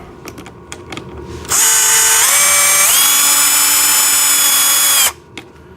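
Power drill's motor whining for about three and a half seconds as it backs a bolt out, stepping up in pitch twice as it speeds up, then cutting off suddenly. Light handling clicks come before it starts.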